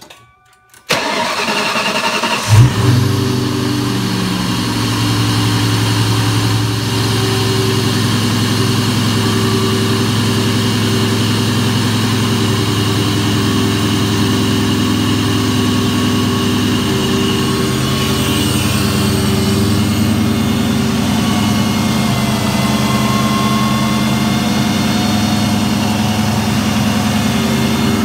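Supercharged 32-valve 4.6-litre V8 being started: the starter cranks for about a second and a half, the engine catches with a brief rev, then settles into a steady idle. It is a start to warm the engine and purge trapped air from a freshly filled cooling system, with the coolant fill point left open.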